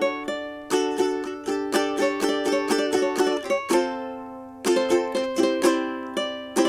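Ukulele played solo, a quick run of single plucked notes and chords ringing out. About four seconds in the notes are left to decay briefly, then the picking starts again.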